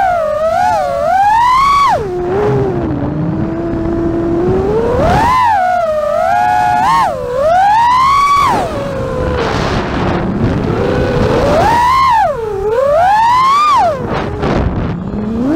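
FPV freestyle quadcopter's brushless motors whining, the pitch sweeping up and down with the throttle. It holds low about two to four seconds in, then climbs in sharp surges around five to eight seconds and again around twelve to fourteen seconds, with a rush of air between the surges.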